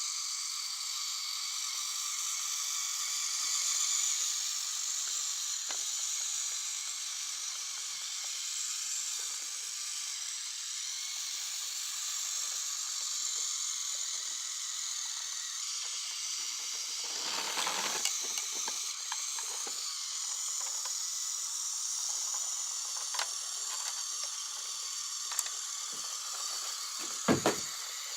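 Battery-powered Geo Trax toy train's small electric motor and plastic gears whirring steadily as it runs along the track, going slowly on weak batteries. A few light clicks are heard, and a sharper knock comes near the end.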